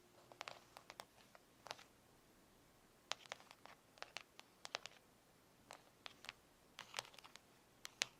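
Fingernails tapping, faint sharp clicks in irregular little clusters with short pauses between them.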